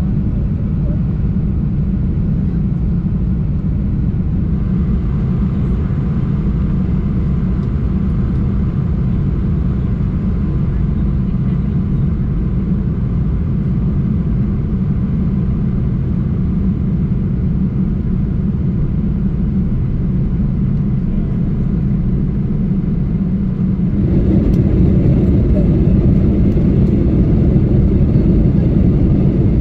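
Steady low rumble of a Boeing 747-400 airliner in flight, heard from inside the cabin. About 24 seconds in it abruptly gets louder and fuller.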